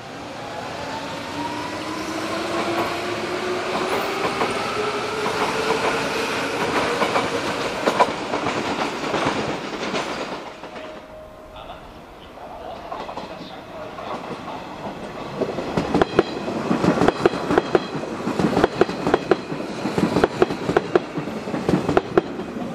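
Hanshin 5001-series 'Jet Car' electric train pulling away, its traction motors whining and rising steadily in pitch as it accelerates. After a break, another electric train rolls over the station points, its wheels clattering in quick, uneven knocks over the rail joints and switches.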